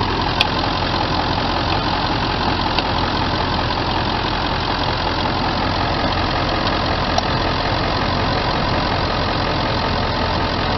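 Ford 7.3 L Power Stroke turbo-diesel V8 idling steadily, with a few faint ticks over it.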